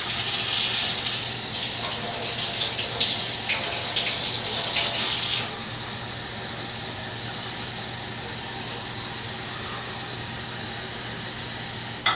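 Water running from a kitchen faucet, shut off abruptly about five seconds in. A fainter steady hiss follows, and a sharp click comes near the end.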